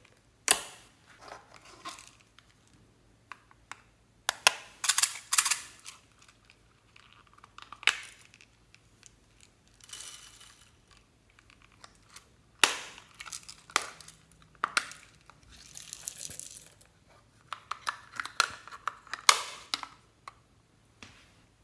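Slime being squished and stretched by hand, giving bursts of sticky crackling and popping. Sharp clicks of plastic toy cases being handled and opened come in among them, and about ten seconds in there is a short hiss of small clay slices sprinkling out onto the slime.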